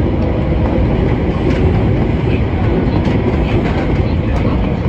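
Osaka Metro 22 series subway train running, heard from inside the car: a steady low rumble from the wheels and running gear on the rails, with a few faint clicks.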